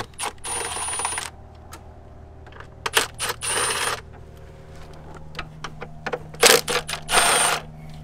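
Hand-held bit driver with a Torx bit turning out the plastic engine cover's bolts on a BMW N52 straight-six: three short runs of rapid metallic clicking, with single clinks in between.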